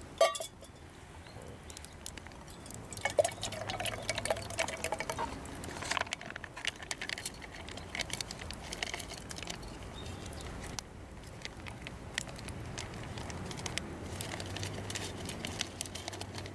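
Liquid being poured into a pot or cup over a campfire, followed by many small crackles and ticks.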